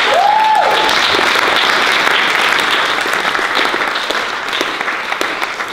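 A roomful of people clapping. One voice calls out briefly in the first second, and the clapping thins out and dies down toward the end.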